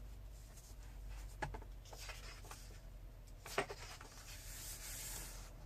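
Faint paper rustling with a few soft taps, the clearest about three and a half seconds in, as a picture book's pages are handled and turned.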